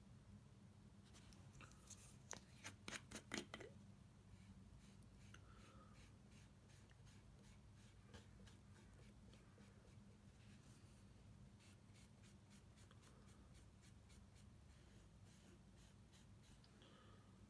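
Faint scratchy rubbing of an acetone-soaked cotton bud on paper laid over a brass strip, transferring printed toner onto the metal. A quick run of small clicks comes about two to three seconds in, over a low steady hum.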